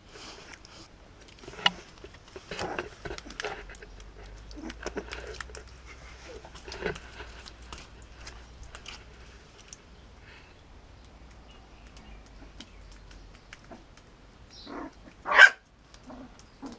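Five-week-old Japanese Spitz puppy giving one short, loud yip near the end. Scattered small clicks and rustles come before it.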